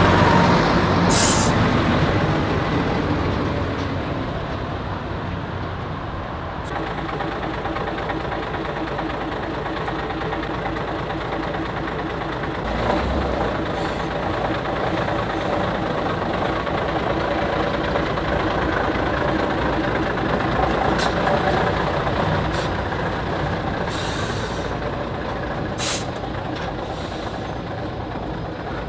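Škoda 706 RTO bus's six-cylinder diesel engine running as the bus pulls across and drives past, loudest at the start. Several short hisses of compressed air from the brakes, the first about a second in and more near the end.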